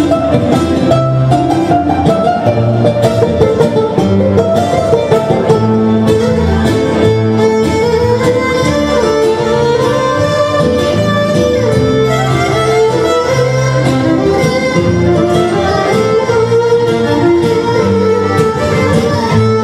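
Two violins playing an ornamented Greek island (nisiotiko) dance tune live, with a strummed acoustic guitar keeping a steady rhythm underneath.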